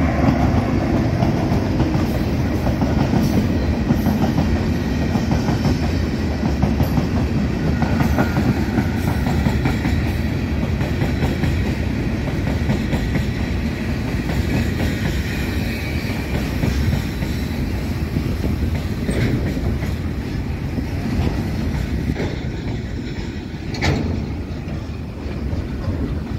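Empty coal hopper wagons of a freight train rolling past, wheels clattering over the rails and the empty steel bodies rattling, with the GE GEU40 diesel-electric locomotive going by at the start. The noise eases off near the end, broken by one sharp knock.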